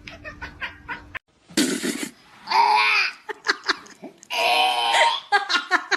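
A person laughing hard in repeated bursts: quick choppy pulses broken by longer, strained wheezing stretches.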